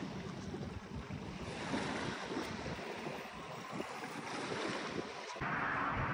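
Wind buffeting the microphone over the wash of surf on the shore. About five seconds in it cuts abruptly to a steadier, brighter rush of wind.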